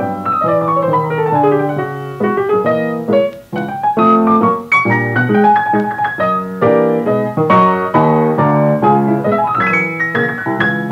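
Easy-listening piano music playing as a soundtrack, with a falling run of notes in the first two seconds and a short pause about three and a half seconds in.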